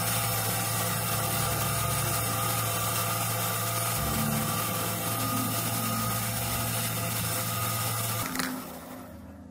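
Mini metal lathe running steadily with a motor hum and whine while a 2.5 mm hole is drilled into the aluminium part. It is switched off with a click about eight seconds in, and the sound dies away.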